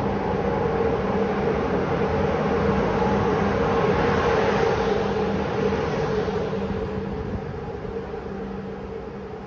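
Passenger train pulling into a station platform: the locomotive's steady hum and the rolling noise of the wheels grow loudest about four seconds in as the locomotive passes close by, then die away as the sleeping cars roll slowly past.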